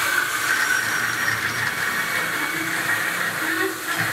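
Circular cold saw cutting through steel pipe, its blade giving a steady high-pitched tone over the running machine.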